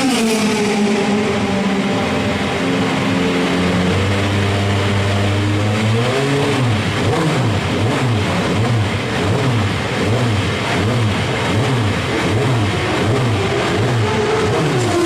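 Audi RS5 DTM race car's V8 engine running loud. Its pitch drops sharply at the start and then holds steady. For most of the rest, the revs rise and fall over and over, about one and a half times a second, before steadying again near the end.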